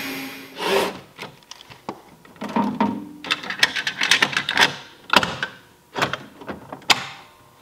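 Handling noise from an EST 278A-REL yellow manual release pull station being fitted to its metal back box: a quick run of plastic and metal clicks, knocks and short scrapes as its hinged front cover, opened with a key, is swung shut and latched.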